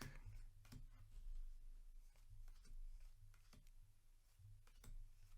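Faint handling of a trading-card booster pack: scattered soft clicks and rustles of the paper wrapper being opened and the cards being handled.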